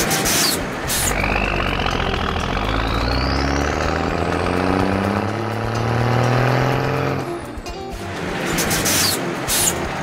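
Cartoon sound effect of a sports car engine revving up and accelerating away, its pitch rising steadily for about six seconds with a high whine climbing above it, then cutting off. A few sharp clanks follow near the end.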